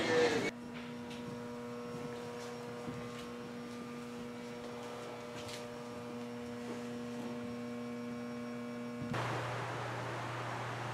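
Steady electrical hum with a clear pitch and several faint overtones. About nine seconds in it gives way to a lower hum under a steady hiss.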